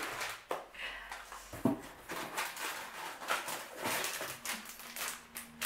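Plastic snack bags crinkling and rustling as they are rummaged out of a box, a string of short irregular crackles.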